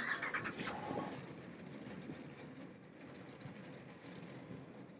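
Caster wheels of a wooden dolly rolling over asphalt under an aircraft wing section. A burst of rattling and clatter comes in the first second, then a quieter steady rolling rumble.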